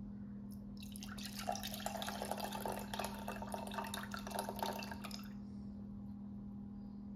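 Milk pouring from a plastic container into a drinking glass, the stream starting about a second in and running for about four seconds as the glass fills.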